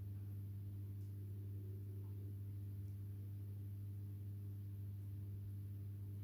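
Steady low electrical hum from running aquarium equipment, one constant pitch with a few faint overtones and no change in level.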